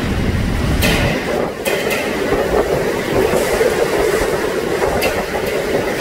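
Hurricane-force wind with driven rain blowing through an open parking garage in a loud, steady rush with a low rumble, broken by a few sharp knocks.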